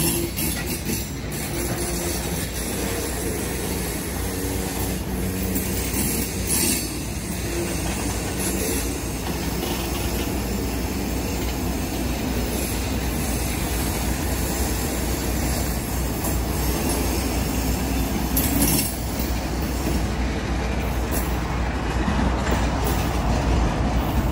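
Freight train of tank cars rolling slowly past: steel wheels running steadily on the rails, with a few clacks at the rail joints.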